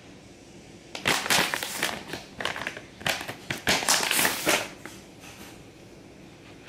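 Crinkly rustling in two bursts, about a second in and again from about three to four and a half seconds in, as a dog's paws are being wiped clean.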